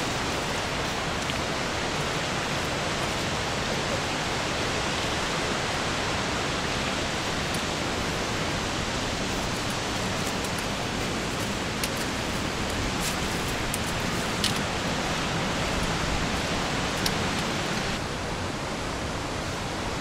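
Steady rush of fast-flowing river water, with a few faint clicks in the second half.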